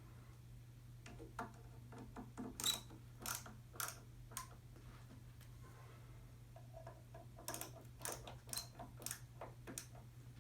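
Irregular light clicks and taps of hardware being tightened as the tower speaker's legs are screwed in, coming in two bunches, over a steady low hum.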